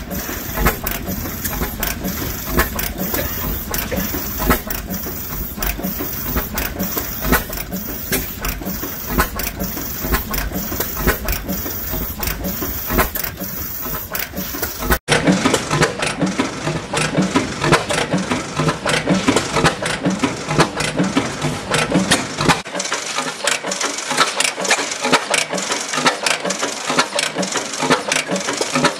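1912 Reid 15 HP two-stroke oilfield engine running smoothly, with an even, repeating beat of sharp strokes. About halfway through, the sound changes abruptly and the strokes come closer together and sharper.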